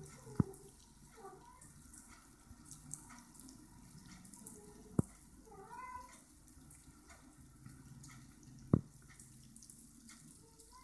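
A cat meows softly a couple of times, short calls that rise and fall in pitch, the clearer one about six seconds in. Three sharp clicks stand out over a faint hiss: about half a second in, at five seconds and near nine seconds.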